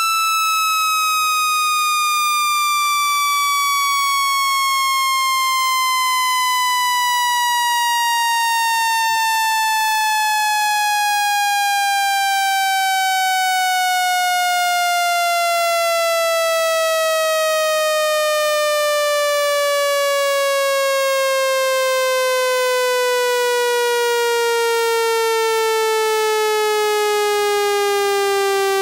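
Synthesized speaker-cleaning water-eject tone, a single buzzy tone sliding slowly and steadily down in pitch, played to vibrate trapped water out of a phone speaker.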